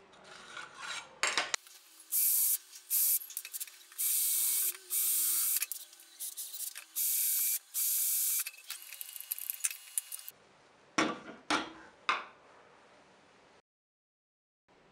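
Hand screwdriver driving screws through a brass key hanger into a hardwood board: a series of scraping, hissing strokes of about half a second to a second each, with a few shorter scrapes near the end and then a brief silence.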